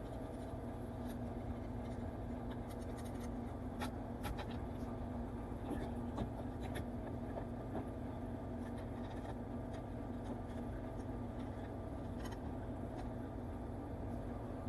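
Scattered light clicks and scraping of metal parts being handled while a car's front strut is fitted, over a steady low hum.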